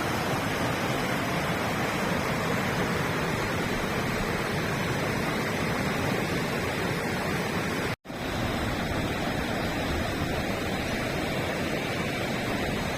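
River water rushing in a steady, loud noise, broken by a momentary dropout about eight seconds in.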